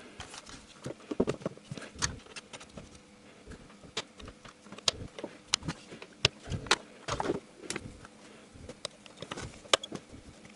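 Plastic air filter housing lid being pressed into place and its spring clips snapped shut: a string of irregular sharp clicks and plastic knocks.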